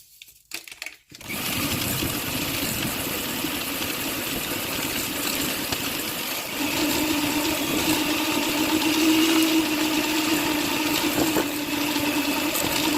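Electric mixer starting up about a second in and running steadily, beating egg yolks with sugar until the mixture turns pale; its hum gets louder from about six and a half seconds in.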